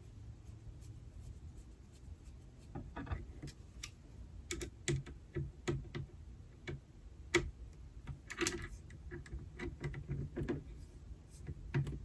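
Faint, irregular small metallic clicks and taps of a small screwdriver and a tiny M.2 screw being fiddled into the SSD mount on a motherboard, with a brief breathy sound about eight seconds in.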